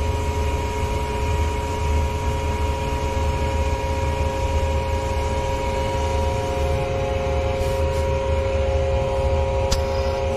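Steady hum of a temporary air compressor running, with air hissing through a shut 3/4-inch globe valve and a check valve on the dry sprinkler system's air line: both valves are leaking by and not sealing.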